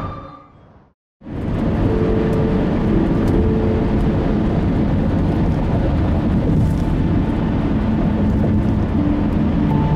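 Steady road traffic noise, a continuous rumble of passing vehicles, starting after a brief silence about a second in.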